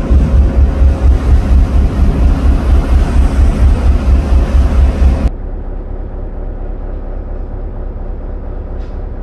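Wind buffeting the microphone over the rumble of a ferry underway, loud and pulsing. About five seconds in it cuts to a much quieter, steady low engine hum, as heard inside the ferry's cabin.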